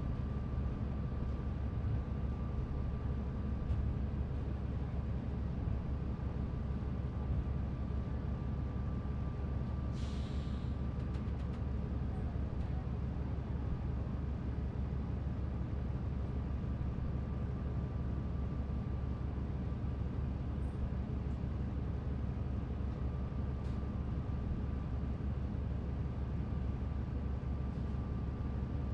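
A 2005 New Flyer D40LF transit bus with a Cummins ISL diesel engine running at a steady, even rumble. About ten seconds in, a brief hiss of air.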